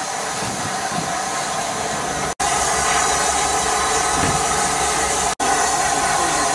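Steam locomotive No. 34028, a rebuilt Bulleid West Country class Pacific, letting off a steady hiss of escaping steam from around its cylinders. The sound breaks off for an instant twice, and after the first break it comes back louder.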